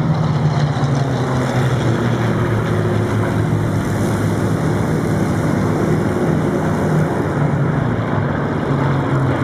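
Engines of several Spitfires in flight overhead, a steady drone with several engine notes overlapping and shifting slightly in pitch.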